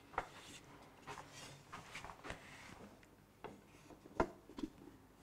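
A long wooden ruler being handled and laid against a chalkboard: scattered light knocks and rustling, with one sharper knock a little after four seconds in.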